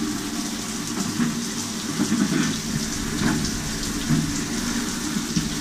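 Shower running, its water spraying onto a tiled floor in a steady hiss, with a few faint knocks.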